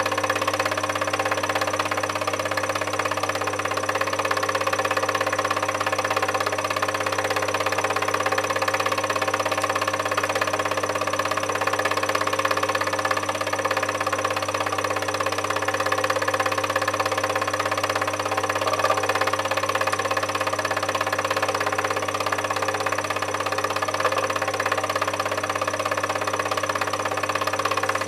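Film projector running at a steady speed: an even mechanical whir with a constant hum underneath that does not change at all.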